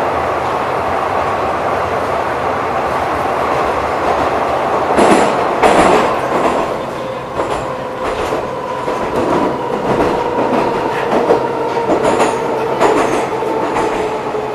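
Metrowagonmash 81-740/741 'Rusich' metro train heard from inside the car, running through a tunnel. Steady running noise, with wheel clicks over the rails from about five seconds in, and a motor whine that slowly falls in pitch as the train slows into a station.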